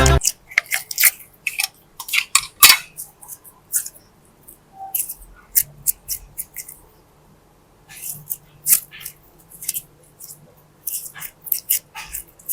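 Crisp ASMR handling sounds of slime and small toys: irregular clusters of short, sharp clicks and crackles with brief quiet gaps between them.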